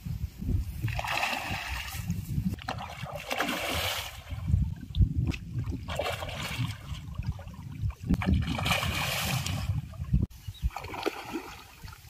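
A hooked fish thrashing at the water's surface as it is played on a rod, splashing in several separate bursts, over a steady low rumble.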